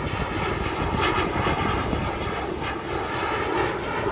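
Fighter jet flying past, its jet engines a loud, steady rush with a crackling edge.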